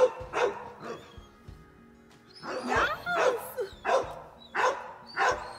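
Dog barking in a string of short barks, with a lull about a second in, over background music.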